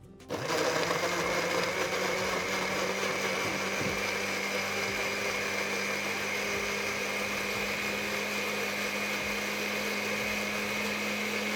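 Countertop electric blender switched on and running steadily at constant speed, pureeing chopped fresh tomatoes with a little water.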